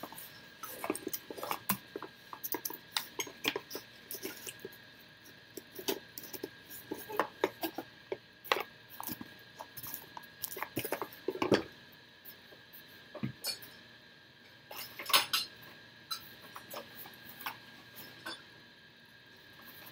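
Cardboard packaging and small items being handled: irregular taps, clicks and rustles, with a louder clatter about three-quarters of the way through. A faint steady high tone runs underneath.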